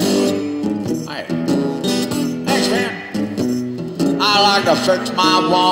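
Acoustic guitar played solo, plucked and strummed, with louder, higher notes from about four seconds in.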